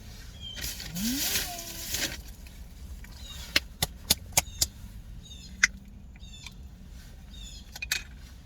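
Small birds chirping in short, repeated high calls. About a second in there is a brief rustle, and around the middle comes a quick run of four sharp clicks, with single clicks later.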